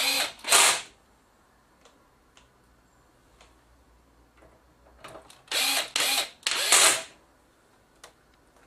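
Electric screwdriver, set to its lowest torque, driving mounting screws into a circuit board: a short run right at the start and a longer, stop-start run of about a second and a half about five and a half seconds in.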